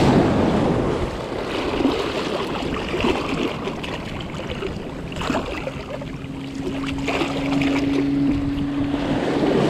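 Small surf waves washing in and foaming around the feet in ankle-deep water, with splashing and wind on the microphone.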